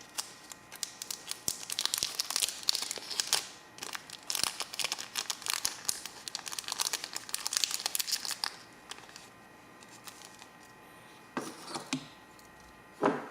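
Packaging crinkling and rustling as it is handled and opened by hand to take out a small replacement part, for about eight seconds, then two short knocks near the end.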